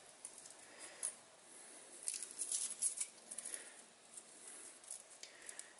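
Faint light clicks and rustles of a set of metal feeler gauge blades being handled and sorted, with one sharper click about a second in.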